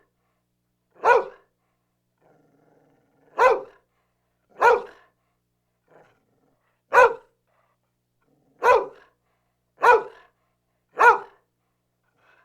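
Medium-sized dog barking: seven single loud barks spaced unevenly, one to two and a half seconds apart.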